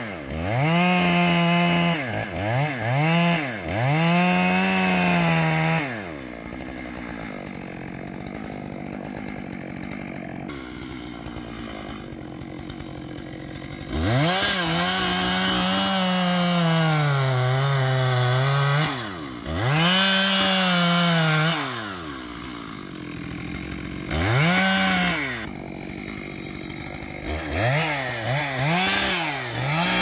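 Two-stroke chainsaw cutting into the base of a standing redwood trunk in repeated bursts. It revs up to full throttle, the pitch sags while the chain is in the wood, and then it drops back toward idle between cuts. There is a longer quieter lull in the first half.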